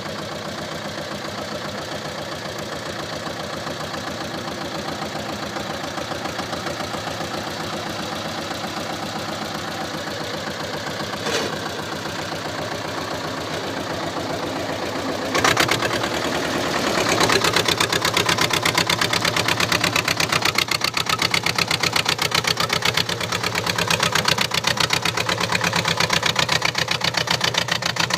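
SAME 250 tractor's diesel engine running at a steady beat. About eleven seconds in there is a brief knock. About fifteen seconds in a sharp bang is followed by the engine picking up and running louder from then on.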